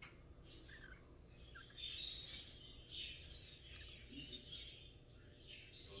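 Parrot chicks being hand-fed from a syringe, making a few short, high begging squeaks and chirps in quick groups.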